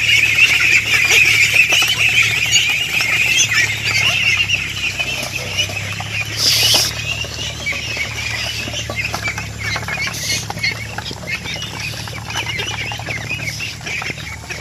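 A flock of young domestic ducks calling in a dense, continuous chatter, loudest in the first few seconds and fading gradually. There is a brief burst of noise about six and a half seconds in.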